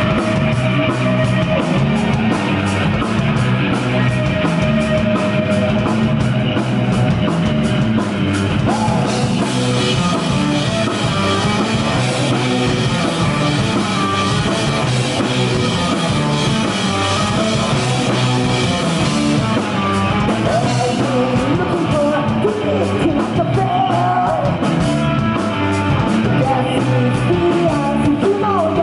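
Live rock band playing a punk-rock song at a steady loud level: two electric guitars, bass guitar and a drum kit.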